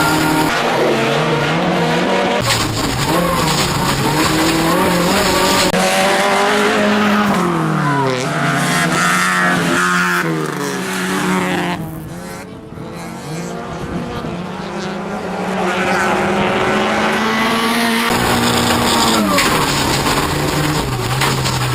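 Race car engine driven hard, its pitch rising and falling through gear changes. It eases off briefly about twelve seconds in, then pulls hard again.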